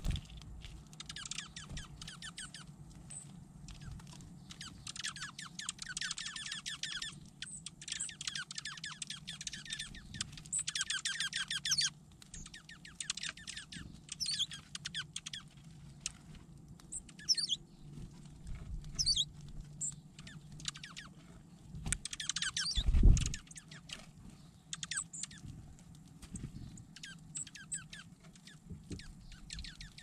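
Small songbirds at a seed pile giving runs of rapid high twittering, each lasting a second or two, and scattered short high call notes. A loud close thump comes about 23 seconds in.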